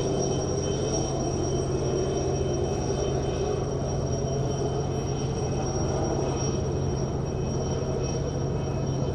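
Seaplane's propeller engines running steadily as it taxis on the water: a continuous engine drone with a thin high whine over it.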